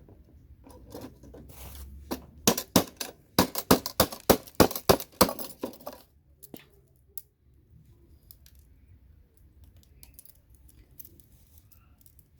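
About a dozen sharp knocks and clinks in quick succession from tools working CPU sockets off scrap motherboards, followed by a few fainter clicks.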